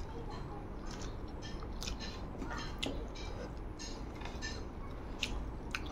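Close-up eating sounds of a person eating rice by hand: fingers working rice on a plate and chewing, with a scatter of short, sharp clicks and smacks over a steady low background hum.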